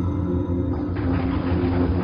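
Eerie Halloween ambience music: a steady low drone of deep sustained tones, joined about a second in by a grainy wash of noise.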